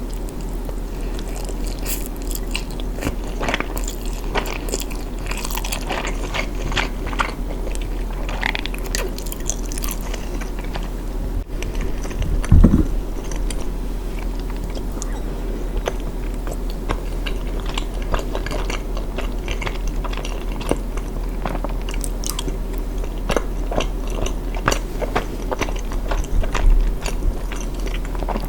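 Close-miked eating: a person biting and chewing food, with many small crisp clicks over a steady low hum. One louder low thump about twelve seconds in.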